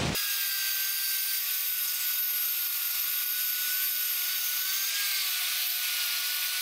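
Table saw running steadily with a constant whine, cutting a 5-degree back bevel along a pine stair tread fed face down.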